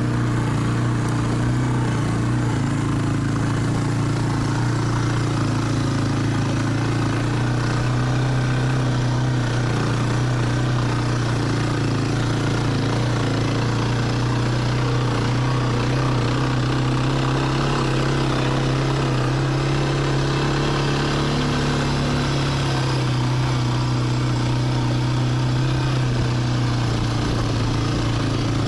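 ATV engine running at a steady, even pitch, with no revving or gear changes.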